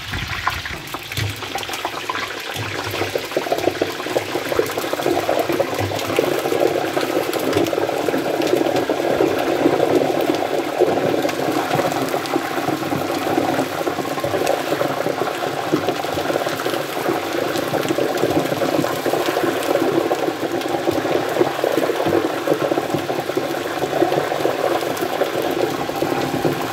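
Pork rinds (chicharon) deep-frying in a large aluminium pot of hot oil: steady, dense bubbling and crackling that builds over the first few seconds.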